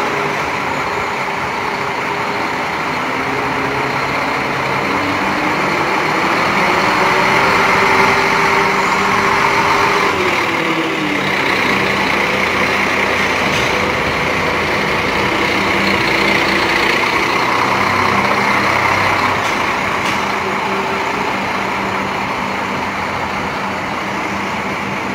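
Large coach bus engine running as the bus is manoeuvred at low speed, its pitch rising and then falling once about a third of the way in.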